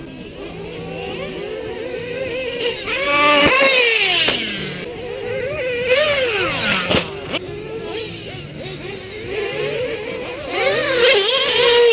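RC off-road buggies and truggies racing, their motors whining up and down in pitch as they accelerate over the jumps, with one passing by with a falling pitch about six to seven seconds in. A sharp knock comes just after that.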